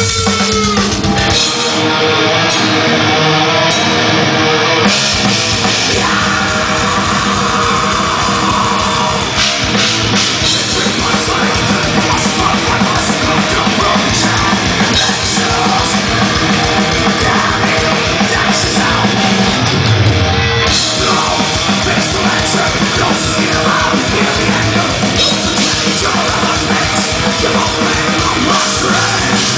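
A heavy metal band playing live: distorted electric guitar over fast, dense drumming, loud, heard from within the audience.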